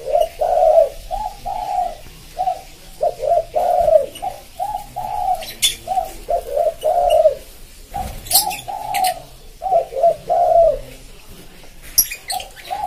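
Spotted dove (tekukur) cooing: repeated phrases of several low coos each, one phrase after another, with short gaps between them.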